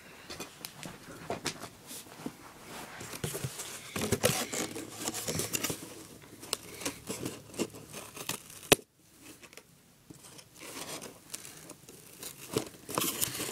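Ordinary household scissors forcing a hole into the corner of a cardboard box: irregular snips, scraping and crinkling of cardboard, with one sharp click about nine seconds in and a brief lull after it. The scissors are struggling with the cardboard.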